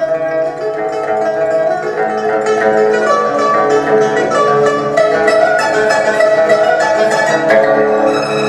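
A quartet of pipas (Chinese four-string lutes) playing together, a dense stream of rapid plucked notes.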